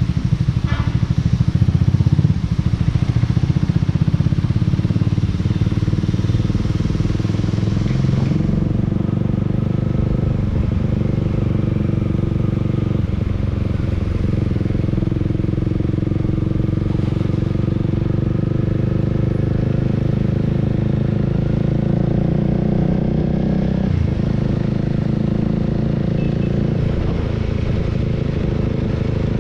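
Honda Rebel 300's single-cylinder engine running steadily while riding, with a hiss of wind and road noise over it that drops away about eight seconds in.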